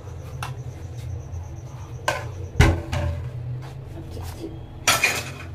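Steel serving bowl and plates being handled: a few scattered knocks and clinks, the loudest a dull thump about two and a half seconds in and a short clatter near the end, over a low steady hum.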